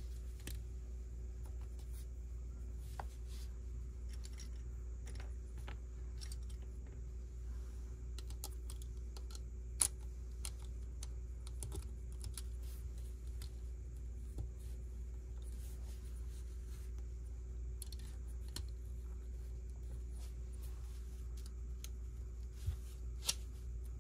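Plastic Lego pieces being handled and pressed together: scattered small clicks, a sharper snap about ten seconds in and two more near the end, over a steady low hum.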